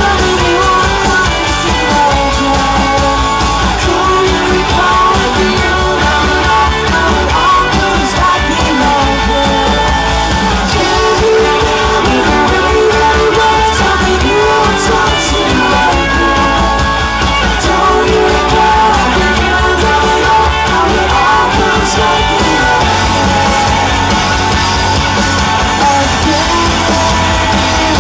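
A rock band playing live: electric guitars, electric bass and drum kit.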